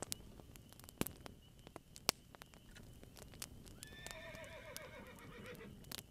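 A horse whinnying about four seconds in, one wavering call that falls in pitch over about a second and a half, among scattered sharp pops of a crackling campfire.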